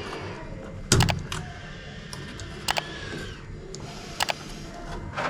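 Sharp plastic clicks and knocks from handling a washing machine's water pressure sensor and pushing its three-wire connector on: a loud click about a second in, then a few lighter ones, two close together near the end.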